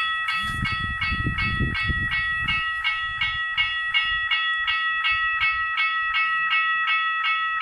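Italian level-crossing warning sounder (LW 830 loudspeaker) ringing its electronic bell tone, about three even strikes a second, warning of an approaching train while the barriers come down. A low rumble sits under it for the first couple of seconds.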